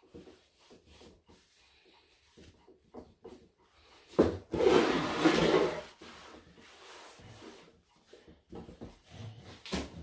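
Wet scouring pad scrubbing a slate clock case: faint scattered scrapes, then a knock and a louder stretch of rubbing lasting about a second and a half near the middle, with another knock near the end.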